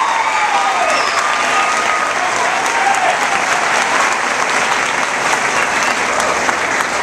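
Audience applauding, with a few whoops and cheers over the clapping in the first seconds.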